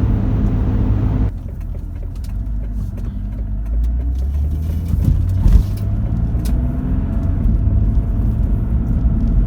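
Car driving: a steady low engine and road rumble, which drops abruptly about a second in and then carries on.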